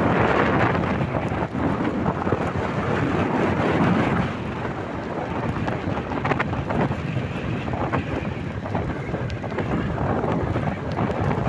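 Wind buffeting the microphone: a loud, steady rush of noise with no speech.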